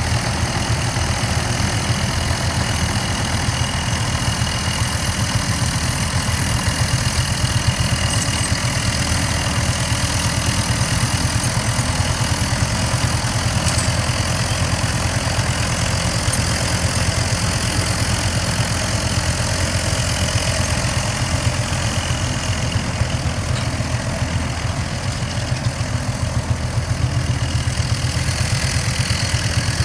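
Vintage Hanomag tractor engine running steadily under load while pulling a trailed plough.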